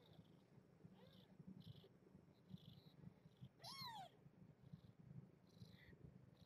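A newborn kitten's single thin, high mew a little past halfway, rising then falling in pitch, among a few fainter squeaks, over a faint low purr from the nursing litter.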